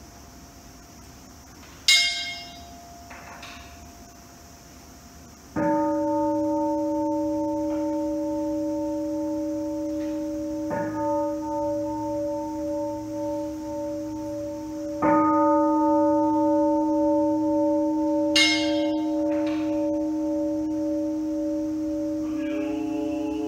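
A large Buddhist altar bowl bell (kin) is struck three times, each time ringing on as a long, deep tone with a slow waver. A smaller, brighter bell sounds twice, once before the bowl strikes and once after them, and chanting begins near the end.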